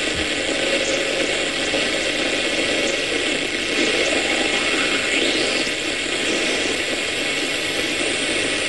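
Steady rushing static from an electronic noise generator of an instrumental transcommunication setup, played through a loudspeaker: the noise in which the experimenters listen for spirit voices. A faint rising whistle about five seconds in.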